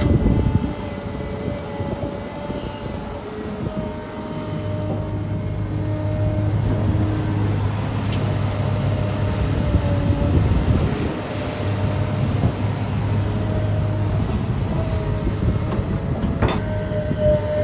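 Heavy excavator's diesel engine and hydraulics running at work: a steady low drone, with a higher tone that comes and goes.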